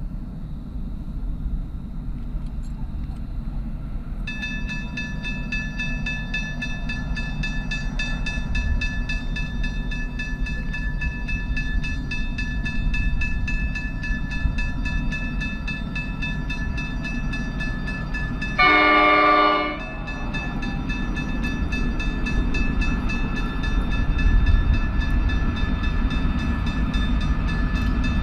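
Diesel freight train rumbling, with a steady high ringing that sets in about four seconds in. About two-thirds of the way through, a single train horn blast of about a second is the loudest sound. The rumble grows louder near the end as the Pacific National NR-class locomotives approach.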